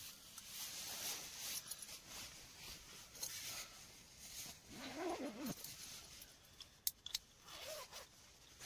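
Quiet rustling of sleeping bags and tent fabric, with a short, soft whine-like sound about five seconds in and a fainter one near the end. A couple of sharp clicks come shortly before the tent lamp goes dark.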